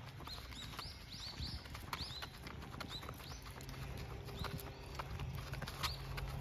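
Cavalier King Charles Spaniel's booted paws tapping and scuffing on a paved path at a walk: irregular light clicks, several a second.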